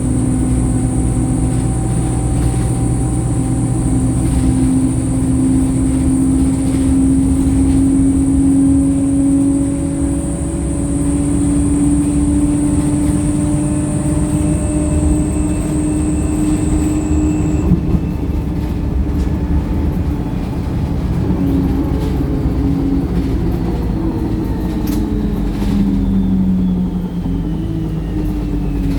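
Wright StreetLite single-deck bus heard from inside while under way: the diesel engine's note climbs slowly in pitch as it pulls, over a steady low rumble of engine and road. A little over halfway through a thin high whine cuts off and the engine note changes, then falls away near the end.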